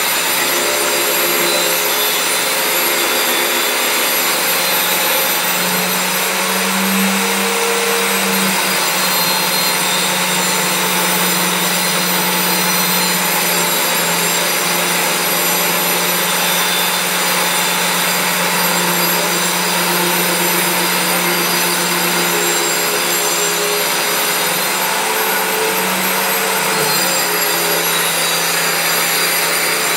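An electric power tool running continuously: a steady hum under a high whine, its pitch shifting slightly now and then.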